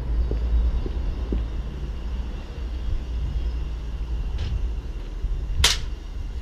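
Low rumble of wind and handling noise on a handheld camera's microphone, with a faint tick and then one sharp click near the end.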